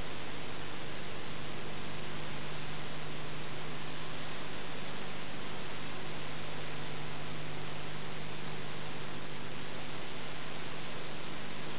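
Steady hiss with a low electrical hum and nothing else: the noise floor of an old Super 8 film transfer.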